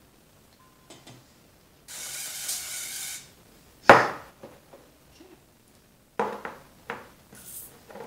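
Aerosol non-stick cooking spray hissing for about a second, then a sharp clank of metal bakeware on the counter, the loudest sound. A few lighter knocks follow, and a second short burst of spray comes near the end.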